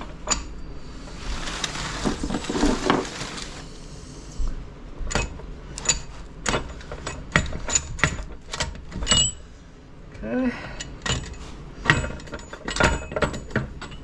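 Steel transfer-case parts (a bearing, shift collar and gears) being handled and set down: a few seconds of rattling scrape, then a run of sharp metallic clinks and knocks.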